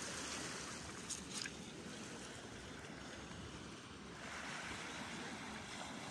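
Small waves washing onto the beach, a faint steady surf hiss mixed with light wind, with two small ticks about a second in.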